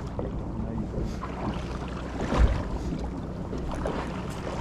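Boat engine running steadily at sea, with wind on the microphone and one low thump about halfway through.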